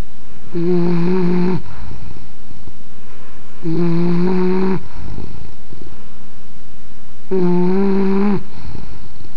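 English bulldog snoring: three pitched snores, each about a second long and about three seconds apart, with a rougher, fainter breath between them.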